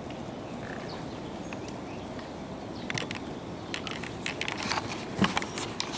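Handling noise as a caught catfish is unhooked with pliers: over a steady outdoor background, a run of small clicks and rustles starts about halfway and grows busier.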